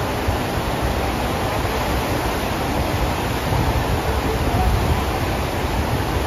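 Water rushing in a fast sheet up the slope of a FlowRider surf simulator, a steady, even rush of spray and churning water.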